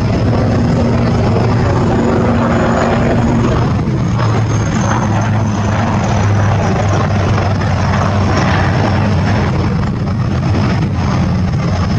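HAL Light Combat Helicopter in flight: its main rotor and twin Shakti turboshaft engines make a steady, loud drone.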